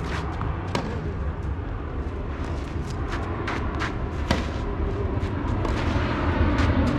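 Tennis rally: a series of sharp pops of tennis balls struck by rackets and bouncing on the court, the loudest a racket hit about four seconds in, over a steady low rumble.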